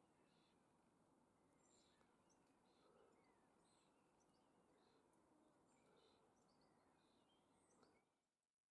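Very faint wild birdsong: scattered short high chirps and calls over a steady hiss, fading out near the end.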